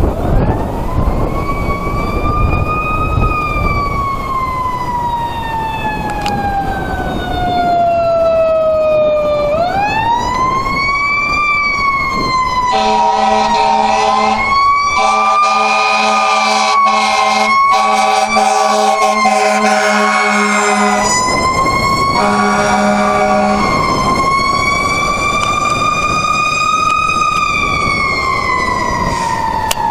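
Fire engine siren wailing, rising and then falling slowly in pitch and climbing again. Through the middle it is joined by long steady horn blasts with a short break, then one more brief blast, before the siren wails up and down again near the end.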